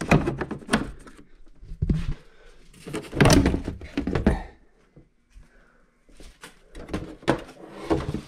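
Hard plastic Jaguar engine cover being pulled up off the engine: a series of knocks, thunks and plastic clatter, loudest about three to four seconds in, with more knocks near the end.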